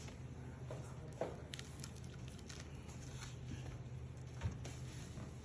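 Light handling noises: scattered faint clicks and taps over a low steady hum.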